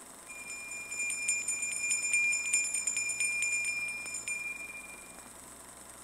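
Small handbell rung rapidly, its clapper striking several times a second over a clear high ringing tone. The ringing starts about half a second in and dies away about five seconds in.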